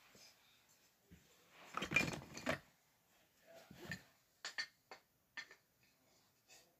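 Wooden toy train track pieces knocking and clacking together as they are handled on carpet: a burst of clattering about two seconds in, a smaller one near four seconds, then a few single sharp clicks.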